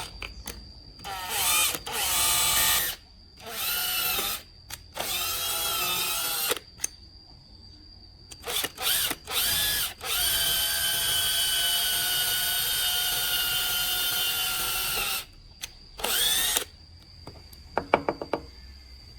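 A handheld electric power tool's motor whining in a series of short runs, its pitch shifting as it speeds up and slows, then running steadily for about five seconds before a last short burst.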